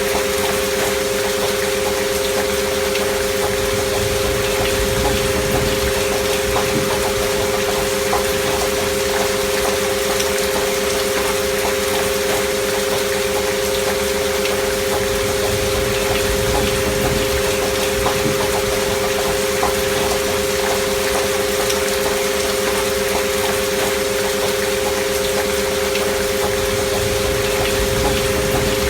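Steady rain sound with two pure sine tones held unchanging underneath, a frequency-music track of 528 Hz and 639 Hz tones with an alpha-wave binaural beat.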